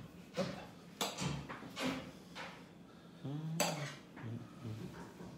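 A spoon clinking and scraping against ceramic plates and a bowl while whipped cream is spooned onto the plates: a string of light, separate clinks.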